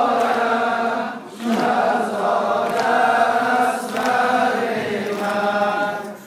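A group of men chanting a Muharram noha lament in Persian in unison. Their sustained voices drop out briefly about a second in, then carry on.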